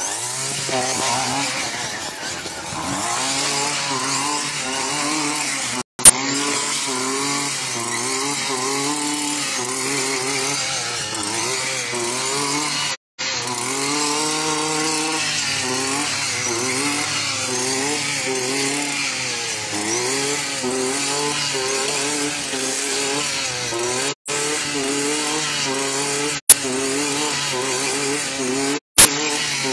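Petrol brushcutter's small engine running throughout, its pitch rising and falling every second or so as it is throttled through the grass. A few brief dropouts break the sound, with sharp loud clicks about six seconds in and twice near the end.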